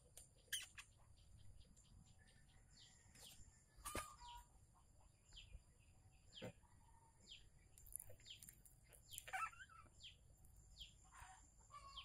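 Faint background birdsong: short, downward-sliding chirps of small birds about once a second, with a couple of sharp clicks from the comb being handled.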